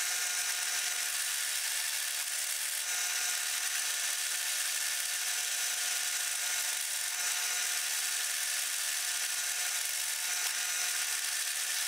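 Benchtop drill press running an end mill that is milling a notch into aluminium square stock: steady motor whine over the hiss of the cut.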